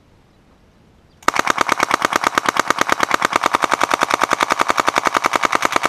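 An M11/9 submachine gun with a Max-31 carbine-length upper firing 9mm on full auto. It fires one long, rapid, continuous burst that starts about a second in and is still going at the end.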